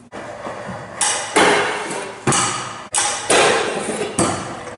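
A stunt scooter boardsliding twice on a low metal rail: each time a loud clank as the deck lands on the rail, a scraping slide along it that fades, then a knock as the wheels come down on the concrete floor.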